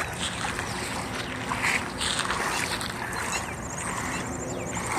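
Lake water sloshing and splashing around someone wading through the shallows.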